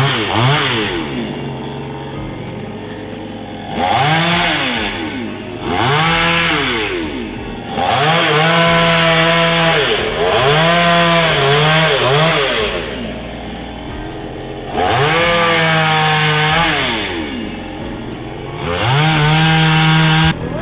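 Petrol chainsaw revving up in repeated bursts of a few seconds each, holding at high speed, then dropping back to idle between them. The last burst cuts off suddenly near the end.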